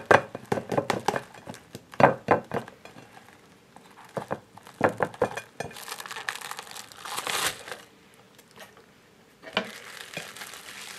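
Cling film crinkling and a thin plastic ice-cream tub clicking and creaking as it is worked off a set semolina pudding, in irregular bursts with a short pause near the end.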